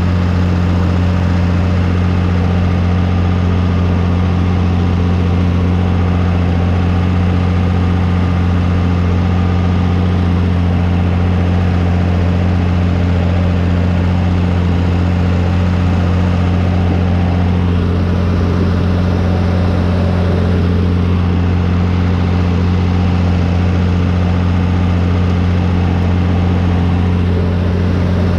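John Deere 3350 tractor's diesel engine running at a steady speed as the tractor drives along, a loud, even low drone.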